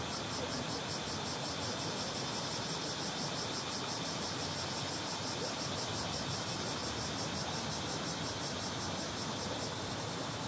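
A small, shallow stream running over stones: a steady rush of flowing water. Cicadas sing over it in a fast, pulsing buzz that fades out near the end.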